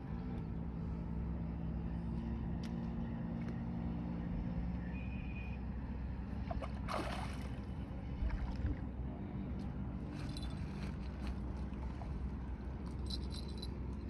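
A hooked fish being drawn in on a line splashes once at the water's surface about halfway through, over a steady low engine hum.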